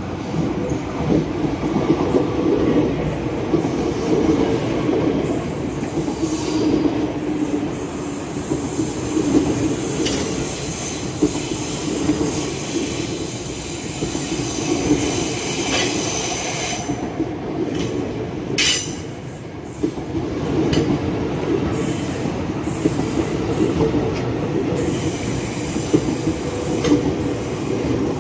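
Ex-Tokyo Metro 6000-series electric commuter train (KRL TM 6018) passing close by, its wheels rumbling steadily on the rails with scattered sharp clacks over rail joints.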